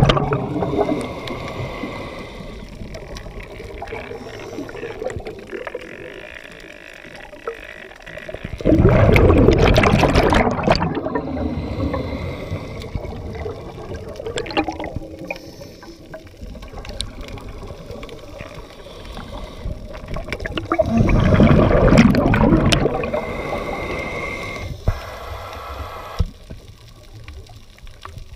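Underwater recording: exhaled bubbles from a scuba regulator, loud gurgling bursts of about two to three seconds, about 9 s in and again about 21 s in, over a quieter steady watery hiss.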